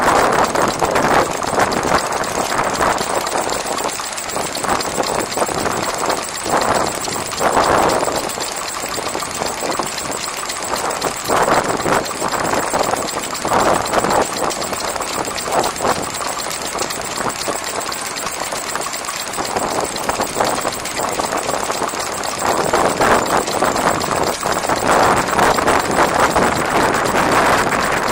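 Small vintage Ruston Hornsby stationary petrol engine running steadily, driving a water pump by a flat belt.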